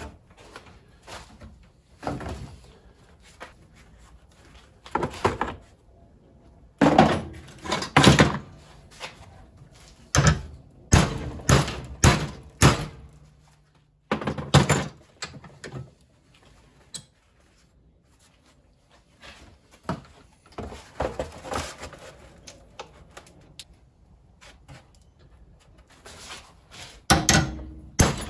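Large hammer striking a metal gas pedal arm clamped in a bench vise, bending its top section down. The blows are sharp and irregular, coming in bunches with a pause of a few seconds past the middle.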